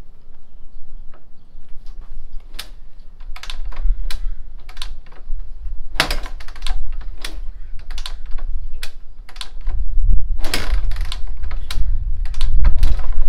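Repeated kick-starting of a Honda XL500R's single-cylinder XR500 engine after a year of sitting: irregular sharp clacks and knocks from the kick-start lever and the engine turning over. The engine does not settle into a steady run, and the kicks grow heavier and louder from about ten seconds in.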